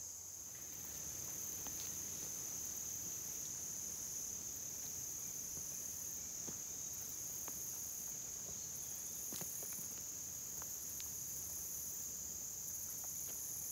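Steady, high-pitched chorus of insects, with footsteps and rustling through undergrowth underneath it.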